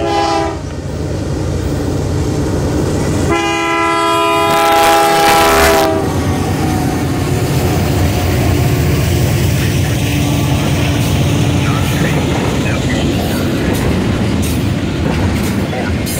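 Freight locomotive horn on a GE AC4400CW: a short blast, then a long blast of about three seconds whose pitch drops at the end as the lead unit passes. It is followed by the steady rumble and clickety-clack of double-stack intermodal cars rolling by.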